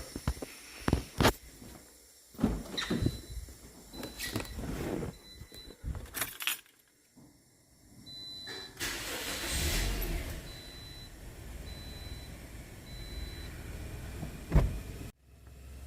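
Keys jangling and clicks, with the car's repeating dashboard warning chime. About nine seconds in, the Toyota Corolla's engine starts and settles into a steady idle, running smoothly on its newly replaced alternator.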